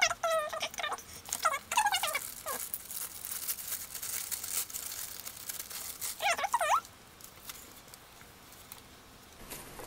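Tissue paper rustling and crinkling as it is pulled open and unwrapped. Short, high squeaks that slide in pitch come several times in the first two seconds and once more about six seconds in, and are the loudest sounds.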